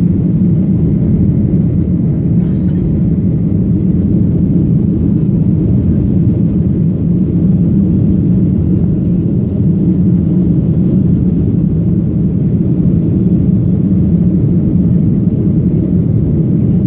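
Boeing 737 cabin noise during the climb after takeoff: a steady, loud low rumble of the jet engines and rushing air, heard from inside the cabin at a window seat.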